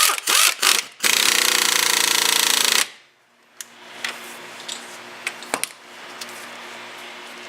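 Air tool running a wheel hub mounting bolt in: a few short trigger blips, then one steady burst of about two seconds that stops abruptly. Light clicks of tools follow.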